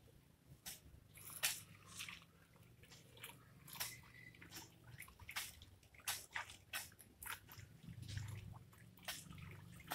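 Bunches of water spinach being dunked and shaken in a basin of water to wash them: irregular splashes, drips and rustling of the wet stems and leaves.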